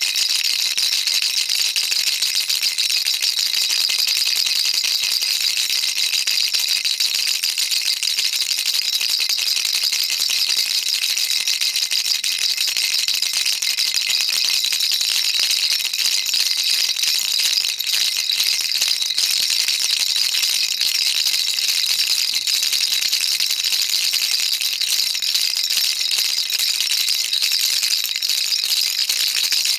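Baby rattle shaken continuously, a dense, steady high-pitched rattling of small beads without pauses.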